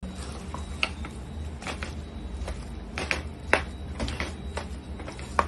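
A cooking utensil knocking and clicking against a pan at irregular intervals, as when stirring a vegetable filling, over a steady low hum.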